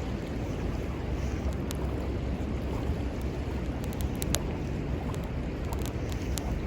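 Wood fire crackling, with scattered sharp pops, over a steady rush of flowing river water and wind on the microphone.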